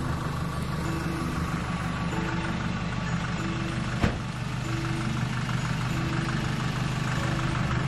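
A vehicle engine idling steadily, most likely the ute parked by the kiosk, with one sharp click about four seconds in.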